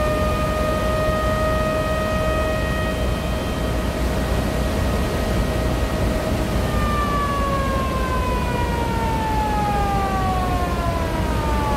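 Floodwater roaring through a dam's open spillway gates, a loud, steady rush. Over it a siren sounds: it holds one pitch for the first few seconds, then comes back about halfway through and slides steadily down in pitch.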